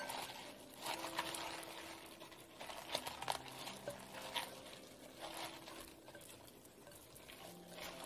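A hand tossing spring cabbage (bomdong) leaves with chili seasoning in a glass bowl: the wet leaves rustle and squish in a few separate strokes, over soft background music.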